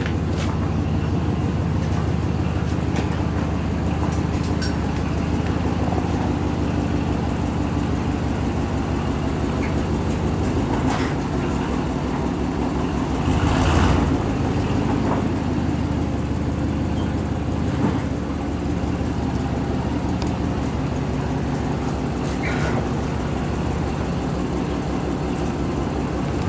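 A vehicle engine running steadily with a constant low drone, with a brief louder rush of noise about halfway through.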